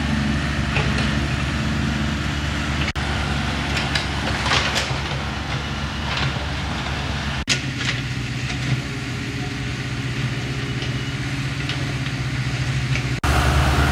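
Excavator engines on an earthworks site running steadily, a low engine hum with a few short knocks. The sound breaks off briefly about 3, 7.5 and 13 seconds in.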